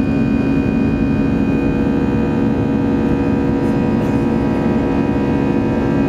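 Airbus A320 cabin noise in climb after take-off: a steady engine drone and rush of air, with a constant low hum and a thin high whine running through it.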